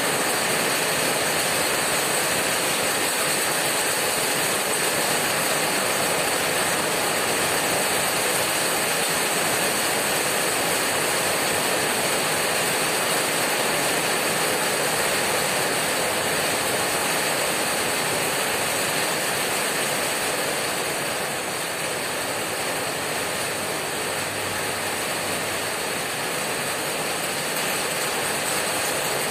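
Heavy rain hammering on a corrugated tin roof: a steady, dense patter of countless drops on the metal sheets. It eases slightly about two-thirds of the way through, then picks up again near the end.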